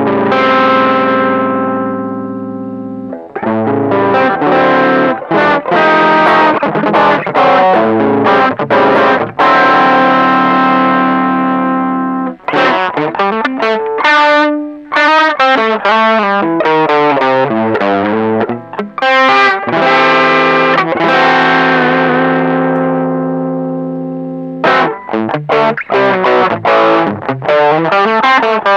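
Electric guitar played through a TC Electronic Dark Matter distortion pedal: distorted chords struck and left to ring out, with a stretch of single notes bending up and down in pitch in the middle.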